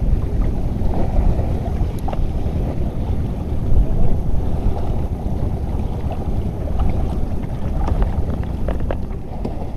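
Wind buffeting the microphone over choppy sea water, a steady low rumble, with a few faint clicks.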